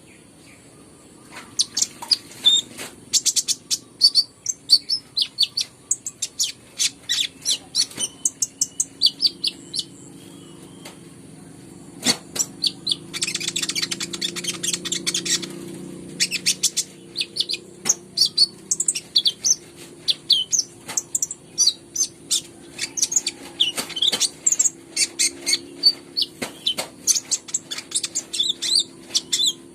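A kolibri ninja (Van Hasselt's sunbird) in full song, pouring out rapid high-pitched chirping phrases almost without pause, the kind of song played as a lure to set other birds singing. A faint low steady hum runs underneath.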